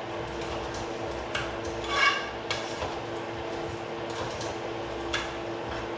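A utensil stirring the rice and gandules in a rice cooker's inner pot, with scattered clinks against the pot; the loudest clink, about two seconds in, rings briefly. A steady low hum runs underneath.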